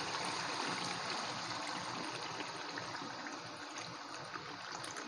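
Coconut milk poured in a thin stream into pork simmering in oil in a wok, a steady trickle over the bubbling of the cooking liquid.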